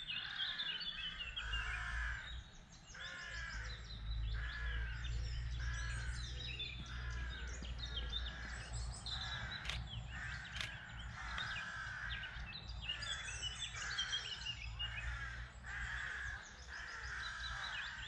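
Harsh bird calls repeating about once a second in a steady chorus. A DSLR shutter clicks twice about ten seconds in. A low steady rumble runs underneath.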